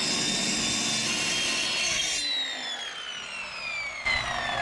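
Festool track saw running at full speed through a cut, then released about two seconds in, its motor whine falling steadily as the blade spins down.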